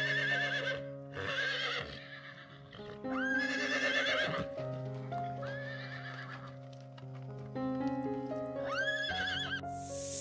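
Horse whinnying about five times, each call quavering and lasting about a second, over soft sustained background music. A brief hiss comes right at the end.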